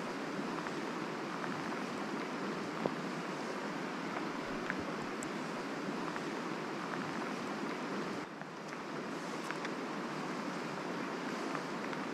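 Steady rush of a small river's flowing water, with a few faint clicks. It turns briefly softer about eight seconds in.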